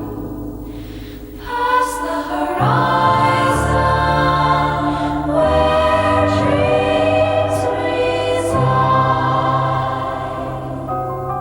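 AI-generated electronic music with sustained, wordless choir-like voices held over deep bass notes, the chords changing about every three seconds.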